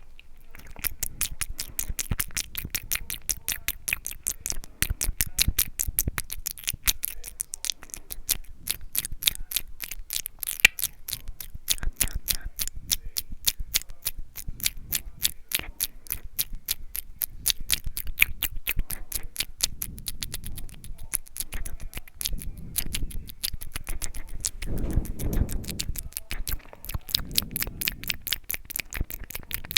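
Close-miked ASMR mouth sounds: a rapid, continuous run of wet tongue and lip clicks and smacks, several a second.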